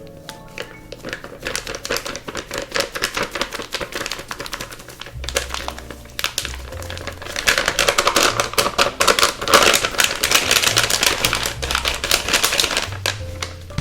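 Close-up food-preparation handling noise: a fast, uneven run of small clicks and crinkles that gets busier and louder in the second half and stops just before the end, over soft background music.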